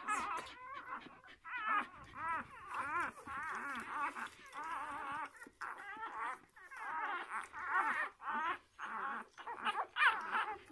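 Six-day-old puppies whimpering and squealing as they jostle to nurse: near-continuous high, wavering whines, several overlapping, with short gaps between.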